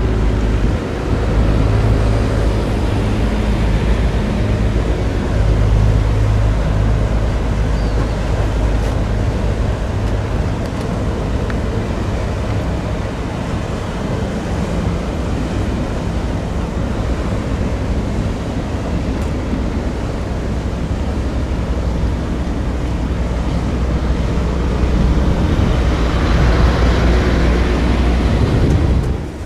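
Engines of a Hellenic Seaways high-speed passenger catamaran passing close, a steady low drone over the rush of its wake. A brighter hiss swells near the end.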